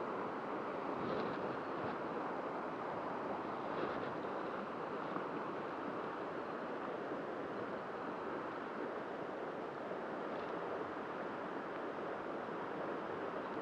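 Steady rush of a fast-flowing river running over a shallow, rippling stretch.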